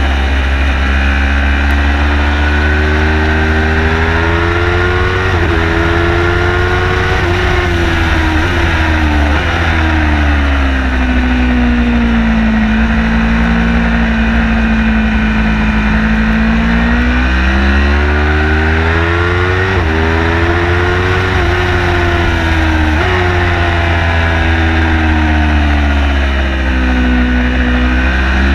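Engine of a car being driven hard on a race track, heard onboard. Its pitch climbs under acceleration, steps down sharply at several gear shifts, and falls away into a long, lower stretch. A heavy, steady rumble of road and wind runs underneath.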